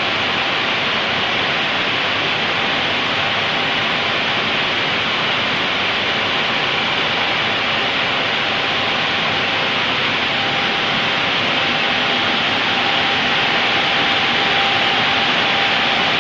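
Glass washing machine running: a steady rush of spraying water with a faint steady whine.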